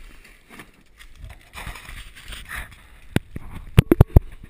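A kayak being dragged and manhandled through brush: rustling and scraping, then five sharp knocks in quick succession near the end as the hull bangs against something hard.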